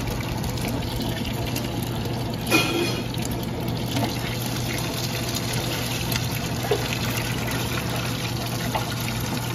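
Milk balls frying in a deep fryer, the hot oil sizzling and bubbling steadily over a low hum, with one sharp clink about two and a half seconds in.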